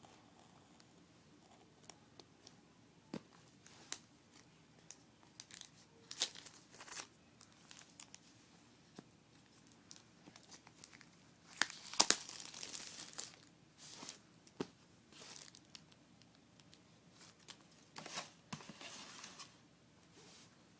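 iPhone 4 packaging being torn open and crinkled by hand. Scattered sharp clicks and rustling bursts, the loudest about halfway through and another near the end.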